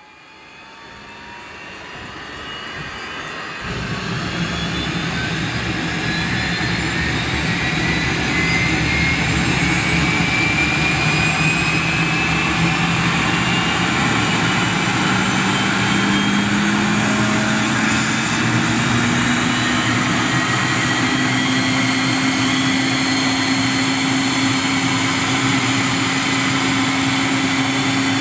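Cessna Citation II's Pratt & Whitney Canada JT15D turbofan starting up: a whine climbs steadily in pitch as the engine spools up, and a deep rumble joins about four seconds in. The sound grows louder over the first eight seconds or so, then runs steady while the whine keeps rising slowly.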